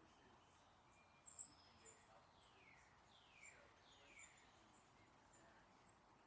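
Faint birdsong: repeated short, high chirps, one sharper chirp about a second in, and three falling whistled notes in a row near the middle, over a quiet background hiss.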